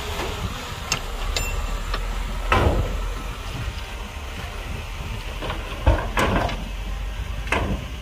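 Heavy earthmoving machinery with a diesel engine running low and steady, and several sharp metallic clanks and knocks scattered through it.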